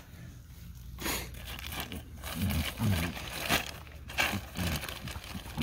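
Clear plastic bag of electric-fence insulator clips crinkling in several short rustles as it is handled.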